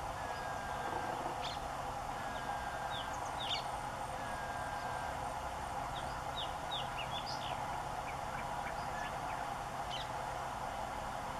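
Small birds chirping in quick, short falling notes, with an even whistled note repeated three times in the first half, over a steady background drone.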